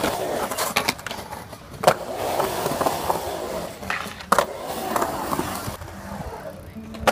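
Skateboard wheels rolling and carving on the concrete walls of a skatepark bowl, with a few sharp clacks of the board hitting the concrete, two of them loud, about two and four seconds in.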